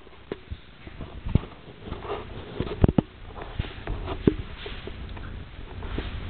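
Footsteps and camera-handling noise: a few scattered sharp knocks and soft scuffs over quiet room noise.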